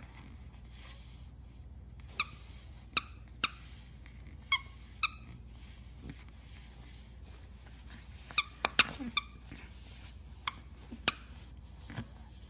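Pug puppies giving short, high-pitched squeaks, about ten in all and scattered irregularly, several of them in quick clusters.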